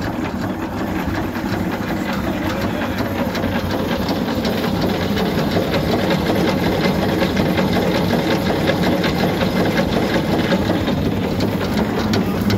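Deutz MTZ 320 vintage tractor's diesel engine idling steadily, with an even, rapid knocking beat.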